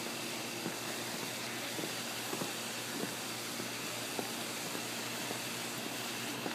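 Steady background hiss with a faint, steady high tone and a few faint scattered clicks.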